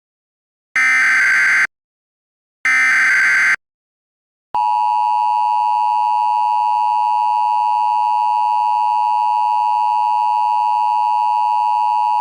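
Emergency Alert System SAME header: two short, harsh digital data bursts about a second apart. About four and a half seconds in they give way to the steady, loud EAS attention tone, which holds on unchanged.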